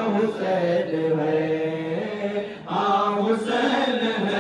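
Unaccompanied male devotional chanting, with long notes held and drawn out and a short break about two and a half seconds in.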